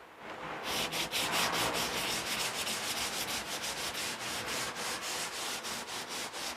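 Sandpaper on a hand sanding block rubbed back and forth in quick, even strokes, about three or four a second, starting about half a second in.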